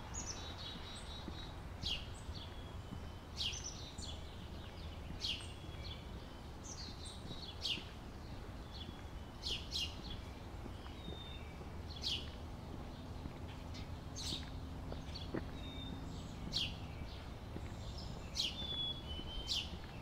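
Songbirds calling in a forest: a short, high note that drops sharply in pitch, repeated every second or two, with scattered softer chirps between, over a faint steady low hum.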